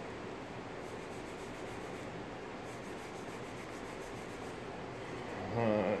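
A pencil scratching faintly on paper as letters are written. A man's voice murmurs briefly near the end.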